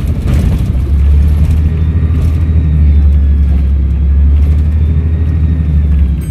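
Volvo B7RLE bus's diesel engine pulling with a steady low drone, a faint turbo whistle drifting above it; the drone drops away just before the end.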